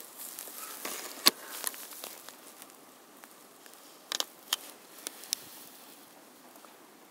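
Scattered sharp taps and rustling in straw litter as a rooster pecks and shifts about. The loudest tap comes about a second in, and a quick pair of taps about four seconds in.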